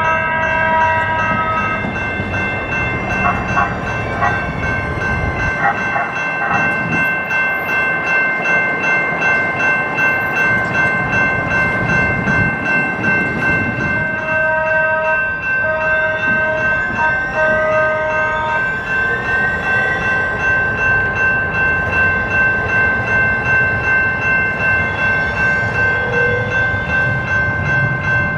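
A Siemens light-rail trolley runs past a grade crossing while the crossing bells ring steadily. About halfway through, a string of four short horn blasts sounds, followed by a rising electric motor whine.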